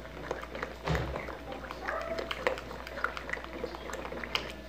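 Spoon stirring a thick, simmering shrimp filling in a pot: wet squelching and scraping with scattered small clicks, and a dull knock about a second in. A short faint pitched sound comes about two seconds in.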